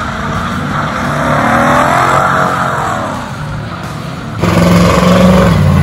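Ford Mustang doing a burnout: the engine revs while the spinning rear tyres squeal, the squeal wavering up and down. About four and a half seconds in, it gives way abruptly to a louder, deeper engine note.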